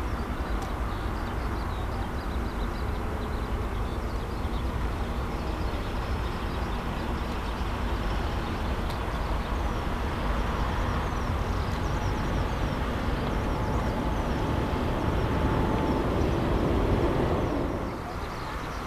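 Jet engines of a four-engine Boeing 747 freighter rumbling steadily as it rolls along the runway, swelling a little before dropping away near the end.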